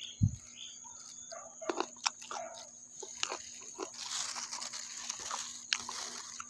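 A person biting and chewing small raw wild cucumber fruits: scattered sharp crunching clicks, then a denser crisp chewing noise in the second half.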